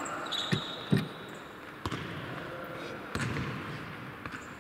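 Futsal ball being kicked and passed on an indoor court: four sharp thuds, the loudest about a second in. A short high squeak sounds during the first second.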